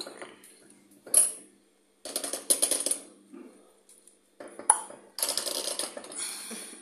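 Metal winged corkscrew being worked into a wine bottle's cork: several bursts of metallic clicking and scraping, with a few sharp clinks.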